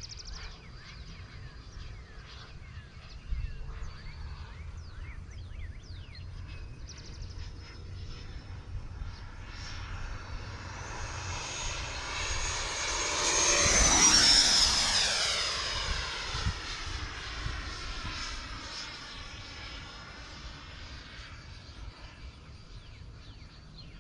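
Electric ducted fan of an HSDJETS 105 mm F-16 RC jet making a flyby. Its whine builds to a peak a little past halfway, drops in pitch as the jet passes, then fades away.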